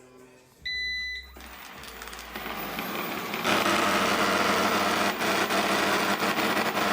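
Eufy robot vacuum gives a short beep about a second in, then its motors spin up over a couple of seconds into a loud running noise with a rattle running through it, made by the roller brush sliding side to side in a 1–2 mm gap as it spins. The sound cuts off suddenly near the end.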